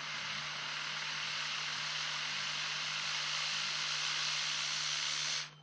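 Steady hiss of breath blown through a straw onto a spinning cluster of four plastic hurricane balls on a mirror, speeding up their spin. It builds over the first second and cuts off suddenly near the end.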